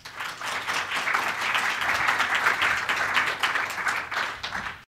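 Audience applauding: many hands clapping together, cutting off abruptly near the end.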